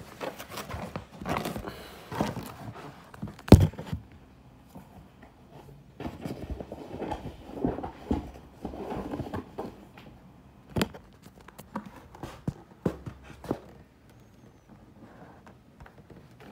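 Hands handling and turning an embroidered canvas tote bag: rustling and scraping with scattered knocks, the loudest a sharp knock about three and a half seconds in.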